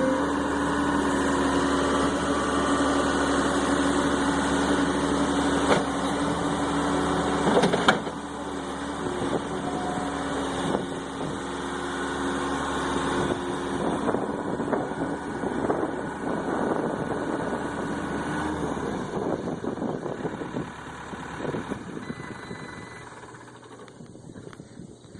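Diesel engine of a Case 445CT track skid steer loader running while the machine is operated. It is loud and steady at first, with two sharp knocks about six and eight seconds in, then quieter and more uneven, fading near the end.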